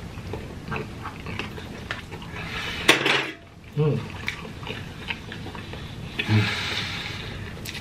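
Forks clinking and scraping against plastic takeout trays, with close-up chewing and mouth noises of people eating.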